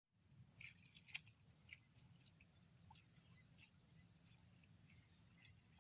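Faint, steady high-pitched drone of crickets or similar insects in a rice field, with scattered short chirps and a couple of light clicks.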